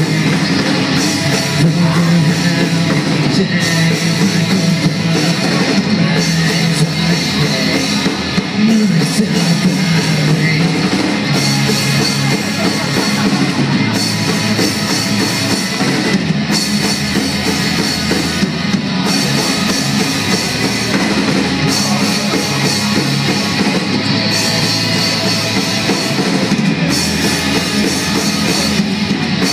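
Live rock band playing a song on electric guitars, bass and a drum kit, loud and without a break.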